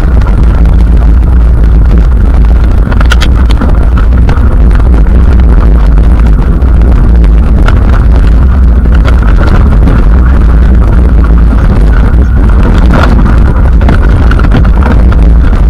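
Heavy wind buffeting on an action camera's microphone as a mountain bike descends a dirt singletrack, with scattered clicks and rattles from the bike and camera mount jolting over the bumps. The rumble is loud enough to distort.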